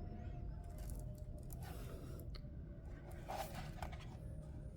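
Faint handling noise as a boxed power supply is held up and turned: a few light clicks and scrapes over a low steady hum.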